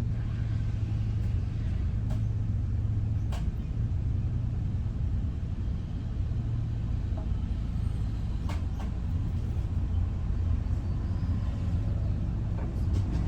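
Steady low rumble of a motor vehicle on the move, with a few faint clicks.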